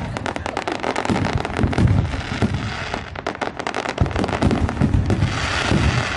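Aerial fireworks going off in a dense barrage: rapid, overlapping sharp cracks and bangs with crackling, over a low rumble, thinning briefly around the middle.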